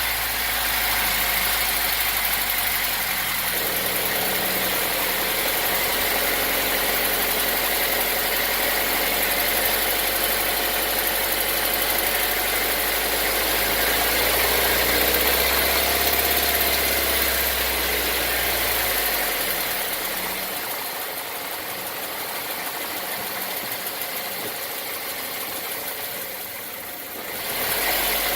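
Nissan HR16DE 1.6-litre four-cylinder engine running steadily, which the owner believes is knocking under load. Its deep hum drops away about two-thirds of the way through and comes back just before the end.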